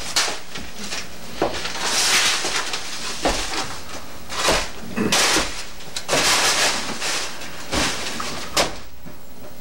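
Strips of paper tape rustling and crumpling in a series of short bursts as they are scooped up by hand.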